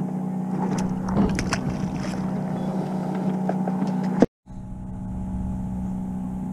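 Sportfishing boat's engine running with a steady drone, with a few clicks and knocks over it in the first two seconds. The sound cuts out completely for a moment a little after four seconds in, then the drone resumes.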